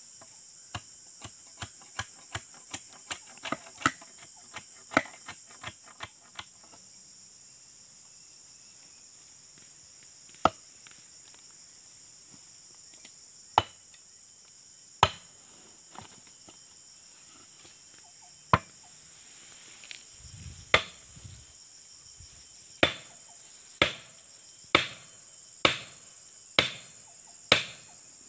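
Sharp wooden and metal knocks as a dodos, a palm-harvesting chisel, is worked back onto its wooden pole after the old handle broke: a quick run of light taps in the first few seconds, a few single knocks, then a steady knock about once a second near the end. A steady high insect drone runs underneath.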